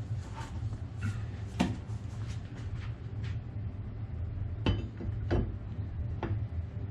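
Scattered clicks and knocks of small parts being handled on a workbench, four or five sharp ones, the loudest about 1.5 s in, over a steady low hum.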